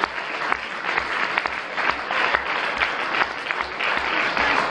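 Audience applauding: many people clapping their hands in a dense, steady patter.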